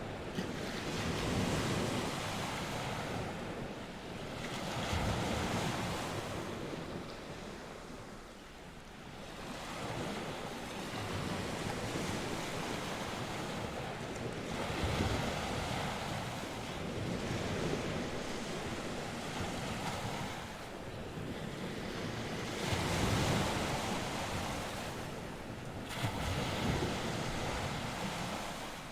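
North Sea waves breaking and washing on the shore in slow surges every few seconds, with wind.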